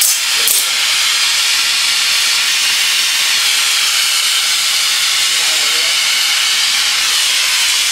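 Oxy-fuel gas torch flame hissing steadily as it heats a flat steel bar, with one brief sharp click about half a second in.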